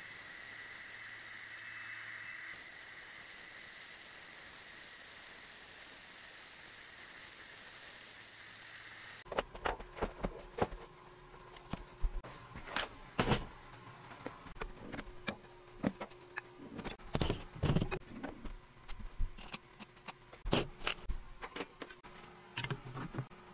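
Bandsaw running and cutting through a block of colored pencils set in epoxy resin: a steady hiss with a high whine. About nine seconds in it cuts off suddenly, followed by a string of irregular knocks and clicks over a faint hum.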